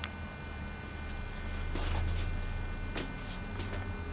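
Low steady hum that swells slightly about halfway through, with a few faint clicks.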